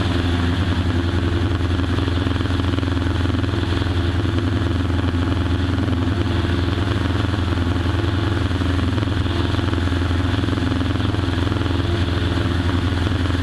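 Cessna 140's Continental O-200 air-cooled four-cylinder engine and propeller running steadily at constant power, with no change in pitch.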